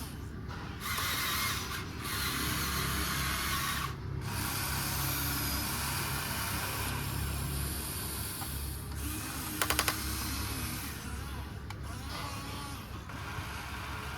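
Small electric motors and gears of a remote-control excavator running with a steady whirring hum. A hiss comes and goes over it, and there is a quick run of clicks about ten seconds in.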